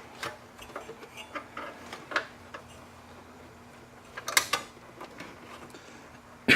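Scattered light clicks and knocks of power-supply cables and plastic connectors being handled and moved about inside a desktop PC tower's metal case, with a faint steady hum underneath. A louder sudden scrape comes right at the end.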